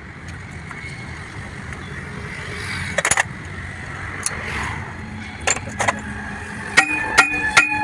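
A thin metal rod clinking against a truck's wheel hub: a few sharp metallic taps around the middle, then a quick cluster of clinks near the end that leave a short metallic ring. A steady low rumble runs underneath.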